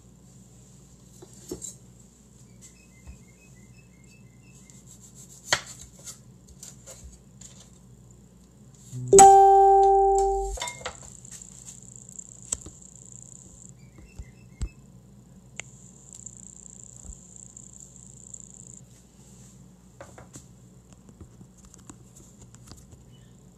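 Quiet room tone with a few light clicks and knocks of items being moved and a knife being set down on a wooden cutting board. About nine seconds in, one loud steady pitched tone sounds for about a second and a half, then fades.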